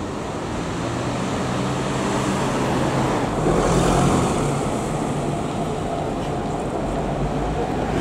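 Street traffic with car engines running steadily at low revs; the sound swells briefly about halfway through as a vehicle goes by.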